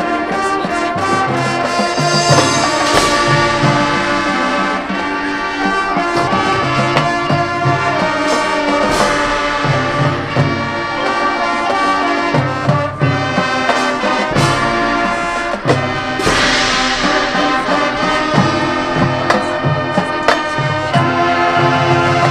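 Marching band playing loudly, with full brass chords and percussion strikes under them.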